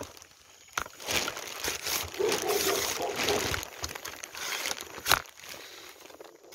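Rustling and crinkling handling noise as a rat snake is caught and lifted in a long-handled metal snake grabber, with a few sharp clicks, the loudest about five seconds in.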